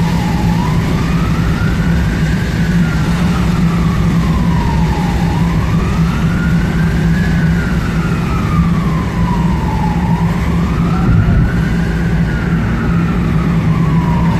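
Emergency vehicle siren on a slow wail, rising and falling about once every five seconds, three full sweeps, heard from inside a moving car over the steady drone of engine and road.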